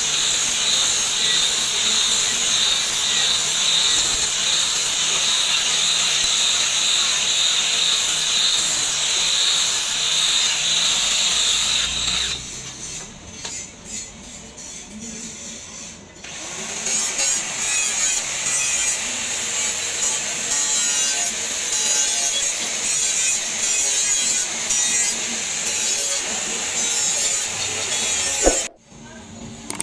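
Handheld angle grinder running against the steel edge of a meat cleaver, grinding and sharpening the blade with a steady high whine. It drops away for a few seconds about twelve seconds in, then runs again.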